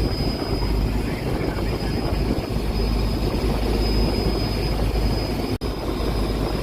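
A boat's engine running with a steady low rumble. The sound drops out for an instant about five and a half seconds in.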